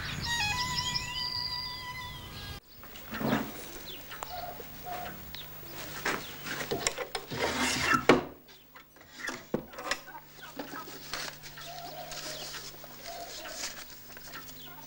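Calls of a large flock of small birds, with gliding whistles. About two and a half seconds in, this cuts to irregular rustling and knocks of a wooden drawer and paper photographs being handled, over a low steady hum.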